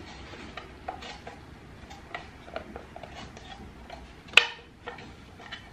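Hard plastic pieces of a hamster sand-bath container clicking and knocking together as they are handled, with one sharper, louder snap about four and a half seconds in.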